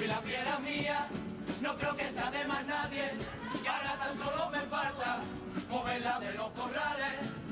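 A junior chirigota, a group of young voices singing a Cádiz carnival song together, with no break in the singing.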